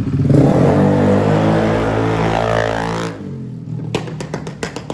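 Motor scooter riding past close by at speed, its engine note falling steadily in pitch as it goes by. After about three seconds it drops away sharply, leaving a quieter run of scattered clicks.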